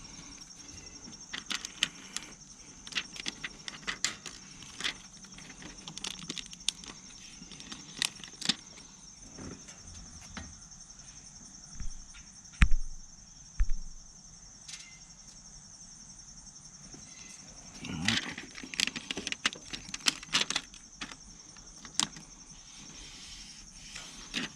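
Scattered small clicks, taps and scrapes of hand work on a motorcycle radio's screen while a screen protector is fitted, with two heavier thumps about halfway through. A steady high thin whine sounds underneath throughout.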